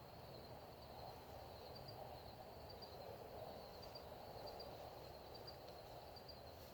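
Faint outdoor ambience: insects chirping in a thin, high, steadily pulsing line over a low background hiss.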